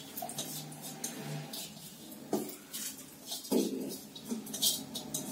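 Steel bowl clinking and scraping against a steel pressure cooker as washed rice is tipped into it, in short irregular bursts.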